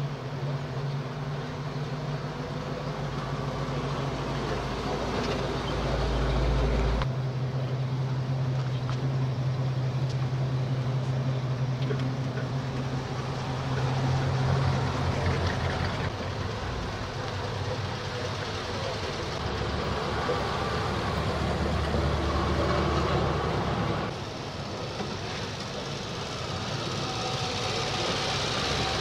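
Classic car engines running as vehicles drive slowly past one after another, the sound changing abruptly twice.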